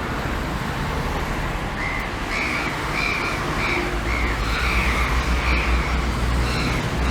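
A bird calling repeatedly, about ten short calls at roughly two a second, starting about two seconds in, over a steady low rumble.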